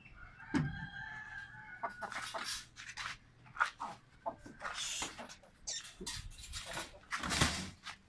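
Chickens calling: one long drawn-out call through the first two seconds or so, then clucking among many short sharp clicks and rustles as a hen is handled and pushed through a wire-mesh cage door.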